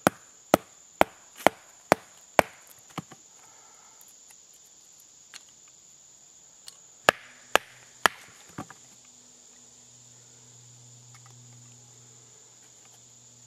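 Wooden baton striking the spine of a carbon-steel bushcraft knife to split kindling: a quick run of sharp knocks, about two a second, over the first three seconds, then four more about seven seconds in. A steady high insect drone underneath.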